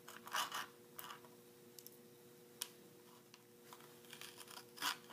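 Small kitchen knife cutting Mentos mints in half on a plastic cutting board: a few short crunches and taps of the blade against the board, over a faint steady hum.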